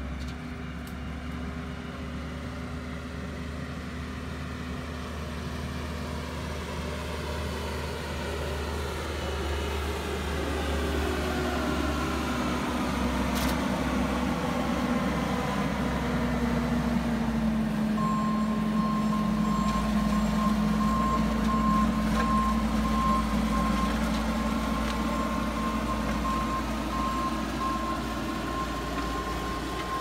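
Bobcat skid steer's diesel engine running as it drives a soil conditioner over graded dirt, getting louder as it comes close a little past halfway and easing off as it moves away. From just past halfway its backup alarm beeps steadily, about once a second, the sign that it is reversing.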